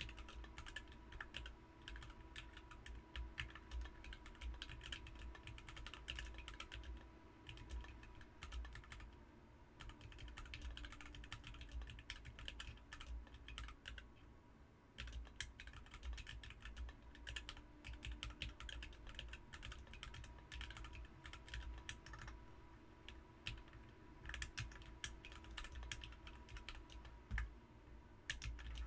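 Continuous fast typing on a BM43 40% mechanical keyboard fitted with Ms Piggy switches, a dense run of key clacks that thins out briefly around the middle.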